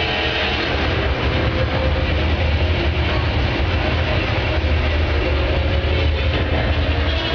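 Heavy engine of the Megasaurus car-eating robot dinosaur machine running steadily under load, a loud, continuous low drone.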